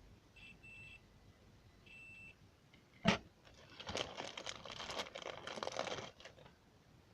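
Two faint short high beeps, then a sharp click about three seconds in and about two seconds of dense, rapid clicking and rattling from an Apple II keyboard being worked.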